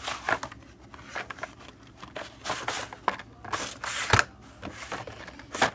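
Carded Hot Wheels die-cast cars in plastic blister packs being handled and shuffled: irregular crinkling rustles and clacks of plastic blisters and card backs, with a sharper clack a little after four seconds and another near the end.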